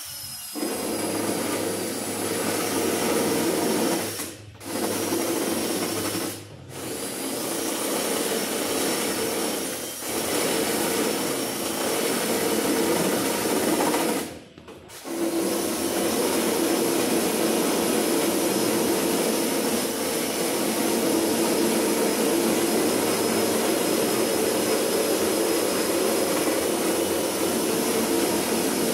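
A handheld power tool running with a steady high whine as it cuts away at the edge of the large snorkel hole in the vehicle's front guard panel to enlarge it. It stops briefly three times in the first half, then runs on without a break.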